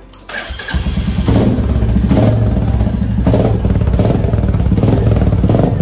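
Royal Enfield Meteor 350's single-cylinder engine, breathing through an aftermarket megaphone silencer, starts about half a second in and runs loud, its throttle blipped roughly once a second.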